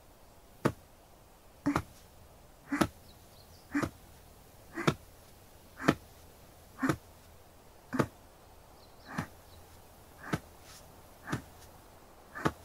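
Shoulder-tapping massage (kata-tataki): a hand tapping a shoulder at a steady pace of about one tap a second, some taps doubled.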